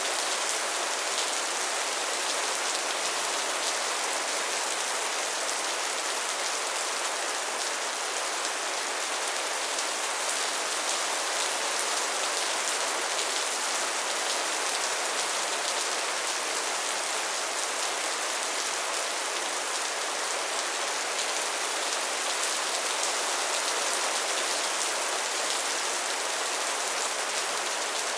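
Heavy rain falling steadily on a metal roof: an even hiss with countless small drop hits and no thunder.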